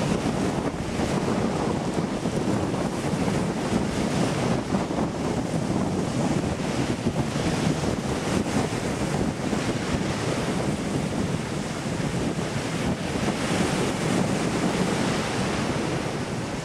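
Small waves breaking and washing onto a sandy beach in a steady, rushing surf, with wind buffeting the microphone.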